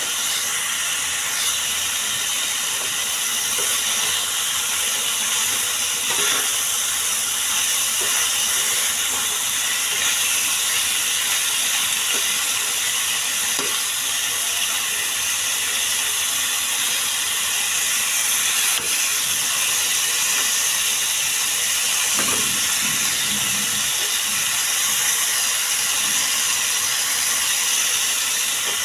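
Chicken pieces sizzling in hot oil in a steel frying pan, a steady hiss, with a few light clicks and scrapes of a metal spoon stirring them.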